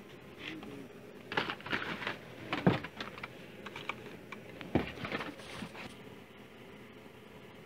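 Plastic blister packs and cardboard backing cards of Hot Wheels cars being handled and shuffled: a run of sharp plastic clicks and crinkles, loudest twice in the middle.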